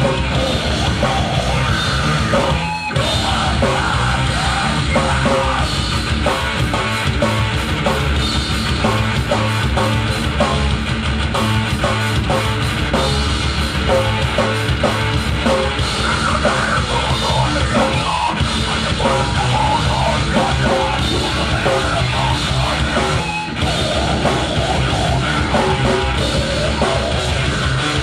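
Live metal band playing loud and dense, with full drum kit and guitars. The music drops out for a moment about three seconds in and again near the end.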